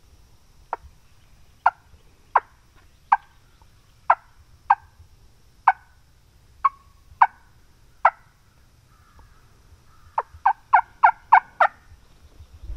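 Turkey clucks and yelps: about ten sharp single notes spaced roughly a second apart, then a quick run of about six yelps near the end.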